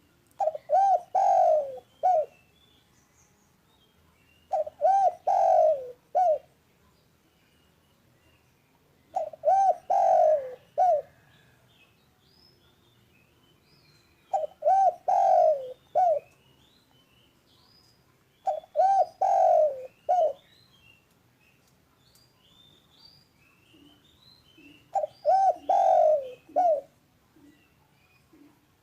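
Spotted dove (derkuku) cooing: six repeated phrases, each of two short notes, a longer falling note and a short closing note, about every four to five seconds. Faint high chirps of small birds sound between the phrases.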